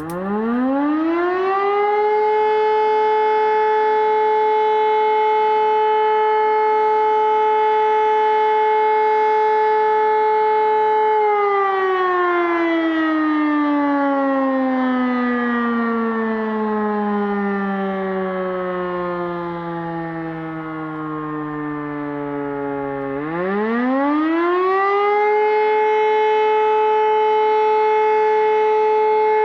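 E57 electromechanical motor siren sounding the German fire-alarm signal (Feueralarm), which calls out the volunteer fire brigade. It winds up to a steady wail within about two seconds and holds for about nine seconds. It is then cut off, and the pitch sinks for about twelve seconds as the rotor runs down. Then it winds up again to the same steady wail.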